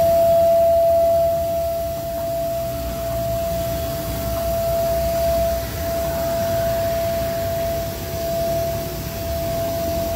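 High-speed spindle of a Sugino MS2000VP CNC milling machine running with one steady whining tone, over a low machine rumble.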